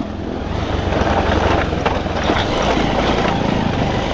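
Motorcycle engine running while riding a rough dirt track, under a steady rushing noise, with a few short knocks around the middle.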